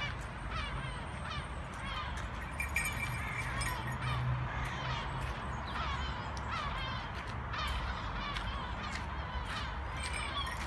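Birds calling: many short, falling chirps repeating several times a second, over a steady low rumble.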